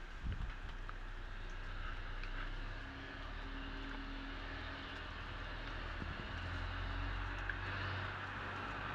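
Steady hiss of rain falling during a thunderstorm, over a steady low rumble.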